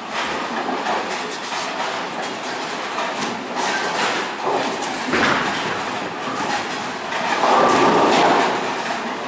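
Bowling alley rumble: balls rolling on the wooden lanes and through the ball return, with a sharper surge about five seconds in and a louder stretch of rumbling near the end.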